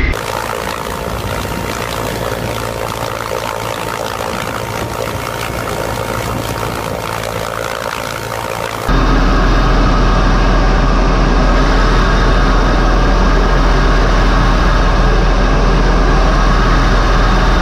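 Apache attack helicopters flying: first a steady rushing noise from a formation seen at a distance. About nine seconds in, it switches abruptly to the much louder rotor and engine noise heard inside an Apache's cockpit, a deep steady rumble with a steady whine over it.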